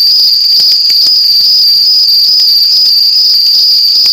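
A loud, steady, high-pitched trill that does not let up, with a few faint clicks.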